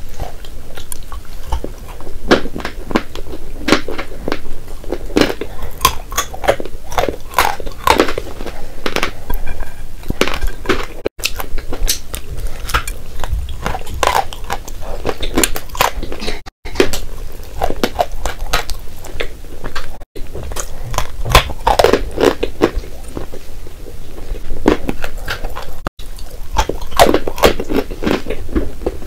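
Chalk bars being bitten and chewed: dense, crisp crunching bite after bite. The sound drops out for an instant four times, at about eleven, sixteen and a half, twenty and twenty-six seconds in.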